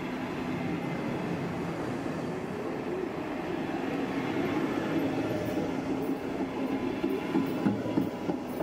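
Red DB Regio double-deck passenger coaches rolling past, wheels running on the rails with a steady hum. A few sharp clacks come near the end as the last coach goes by.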